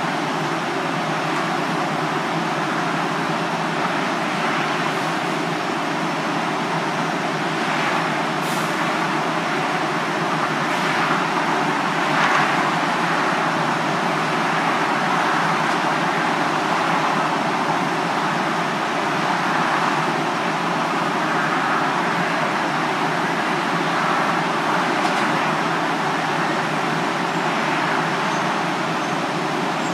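DART light rail train standing at the platform with its equipment running, a steady, even noise that neither rises nor falls. There are a few faint clicks.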